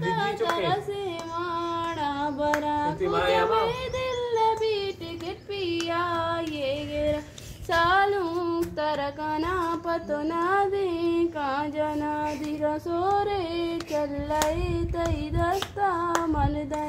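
A female voice singing a melodic song in repeated phrases of held, wavering notes, with hands clapping along.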